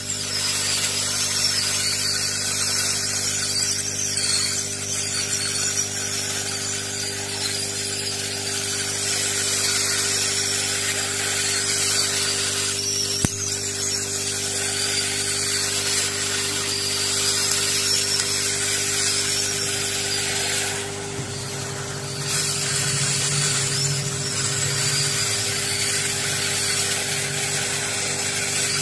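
Handheld heat gun running steadily: a constant motor hum and whine under a rush of blown air. A single sharp click comes about 13 seconds in, and the low hum changes about 21 seconds in.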